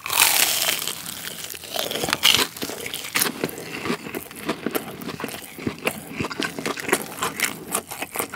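A bite into an air-fried, breaded rolled pork cutlet. There is a loud crunch of the crust at the start and another about two seconds in, then steady chewing full of crisp crackles.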